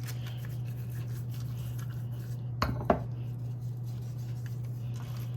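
Hands rubbing dry seasoning into a raw fish, with two sharp knocks close together around the middle, over a steady low hum.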